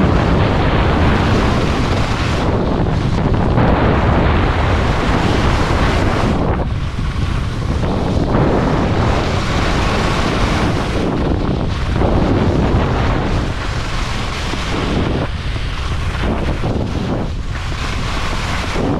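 Wind buffeting the microphone of a skier's camera during a downhill run, mixed with the hiss of skis on hard-packed snow. The rush swells and eases every few seconds.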